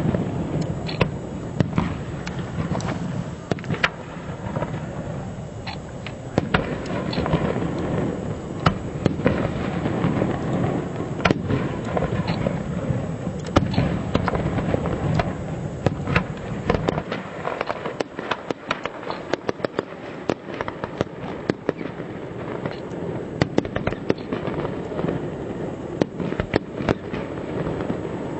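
A fireworks display: shells bursting in a rapid, irregular string of bangs and crackles. Under the first half runs a low rumble that drops away a little past halfway, and after that the bangs come thicker.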